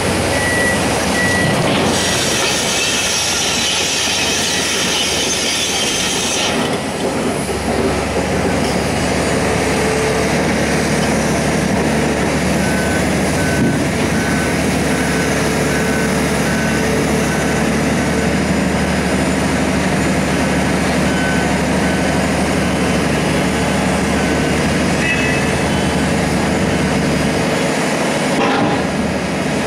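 Diesel engine and hydraulics of a CAT tracked excavator running steadily as it loads large rocks into a Volvo articulated dump truck, with a stretch of high hissing early on. A beeper sounds about once a second for several seconds in the middle.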